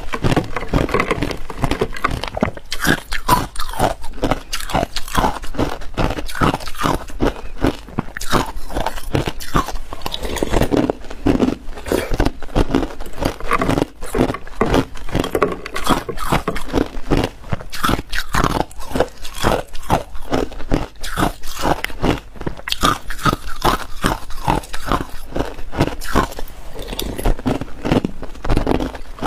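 Ice cubes being crunched and chewed close to a clip-on microphone: sharp cracking and crunching, a few bites a second, without a break.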